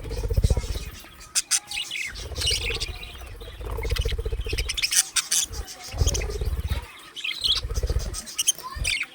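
Budgerigars chirping and warbling in short, high, rapid calls. Repeated low rumbling bursts, about five of them, come and go over the chirping and are the loudest sounds.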